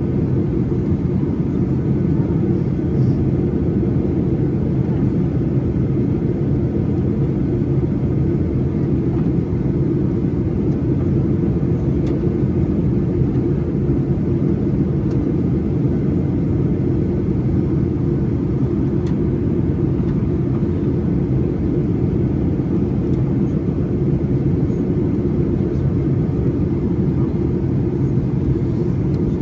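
Steady cabin noise of a Ryanair Boeing 737-800 in flight: its two engines and the rush of air, heard from inside as a deep, even rumble that does not rise or fall.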